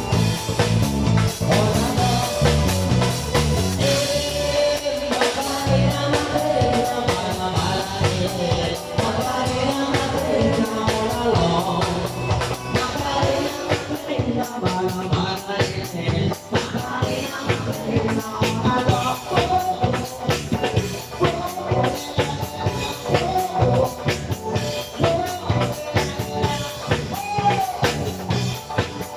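Rock band music with a steady drum-kit beat and a wavering melody line over it.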